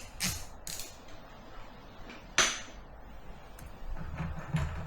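Hand tools and hands working at the spark plugs of a Honda CB400 engine: a few light scrapes and clicks, with one sharp snap about halfway through, the loudest sound.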